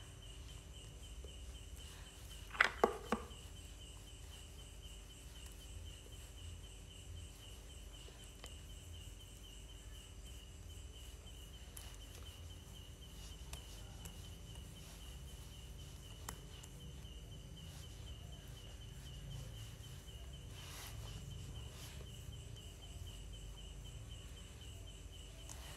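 Quiet room tone with a steady faint high-pitched tone throughout. About three seconds in, three quick sharp clicks, the loudest sounds here.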